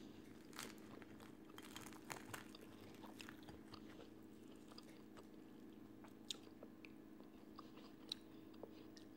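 Faint chewing and crunching of crispy fried chicken, with scattered small crackles as the breading is pulled apart by hand, over a steady low hum.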